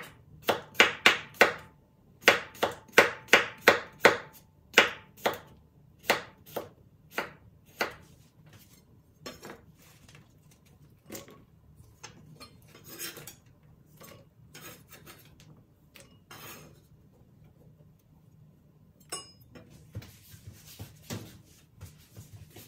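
Kitchen knife thinly slicing cucumber on a wooden cutting board, a quick even run of sharp knocks about three a second that stops about eight seconds in. Then softer scraping and rustling as the cucumber slices are gathered by hand and dropped into a glass bowl.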